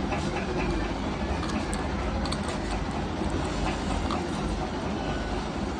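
Steady low rumbling background noise, with faint light clicks of small plastic jars being handled.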